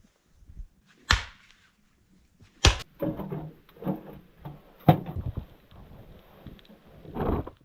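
Several sharp knocks, the loudest about five seconds in, with crunching and rustling between them and a longer scraping or crunching burst near the end.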